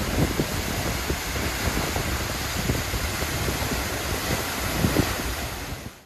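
A tall waterfall rushing loudly as a steady spray of falling water, with gusty wind buffeting the microphone. It cuts off suddenly at the very end.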